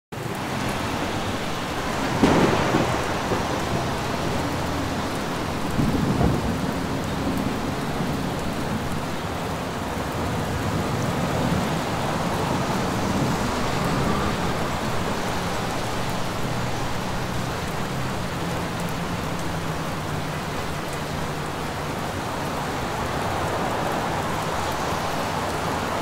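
Steady rain with thunder: two louder rumbles about two and six seconds in over a constant wash of rainfall.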